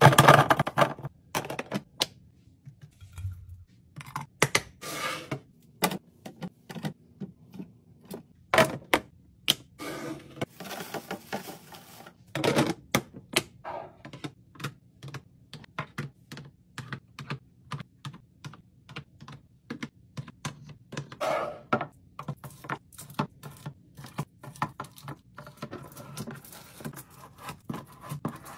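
Many irregular clicks, taps and knocks of hard containers and packaging being handled and set down while restocking a fridge, with a few louder knocks near the start and partway through.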